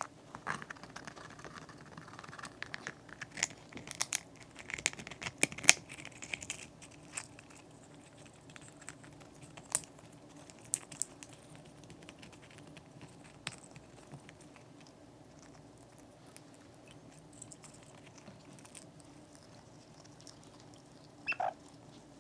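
Amazon parrot cracking open a walnut shell with its beak: irregular sharp clicks, cracks and crunching, busiest in the first six seconds and sparser after. A brief squeak sounds near the end.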